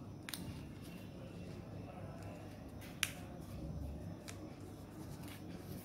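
Paper being folded and creased by hand: faint handling rustle with a few sharp crackling clicks from the crisp paper, the loudest about three seconds in.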